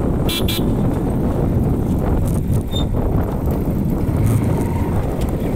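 Wind buffeting the microphone on a moving motorcycle: a loud, steady low rumble of wind and road noise. Two short high-pitched chirps sound just after the start.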